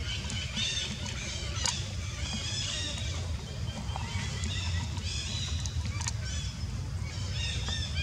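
High-pitched animal calls: short chirps repeated in quick clusters throughout, over a steady low rumble.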